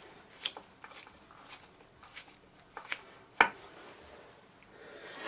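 A few light clicks and taps of a driver working Corby bolts tight through a glued knife handle, the sharpest about two-thirds of the way through.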